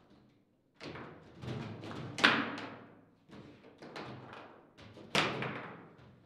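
Table football in play: the ball knocked about by the players' figures and rods, giving a run of irregular clacks and thuds. Two sharp, loud knocks stand out, a little over two seconds in and about five seconds in.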